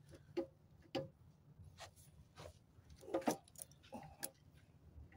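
Light metallic clicks and clinks from handling the parts of a partly dismantled Yanmar TF160 diesel engine. They come irregularly, with a small burst about three seconds in, over a faint low hum.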